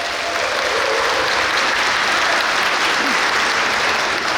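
Audience applauding in a hall, a dense steady clapping after a rousing line of a speech.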